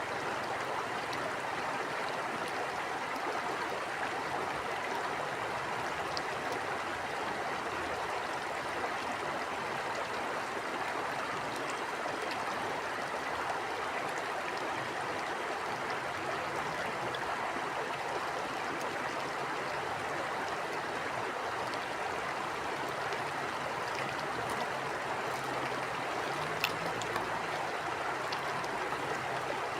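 A stream of water flowing steadily, an even rushing babble, with a faint tick here and there and one brief click near the end.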